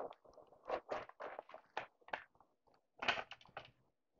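Hands handling a cardboard box and plastic packaging: irregular crinkling, scraping and small taps, with a cluster of louder crackles about three seconds in.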